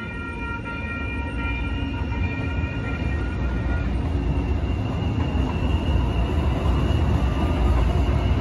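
SACRT light rail train rolling through a street grade crossing, its low rumble of wheels and motors growing louder as the cars pass. For about the first four seconds a steady tone made of several pitches sounds over it, then stops.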